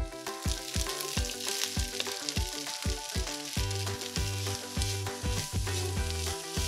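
Sliced onions and pieces of stomach sizzling in hot oil in a frying pan, stirred with a spatula. Background music with a steady beat runs underneath.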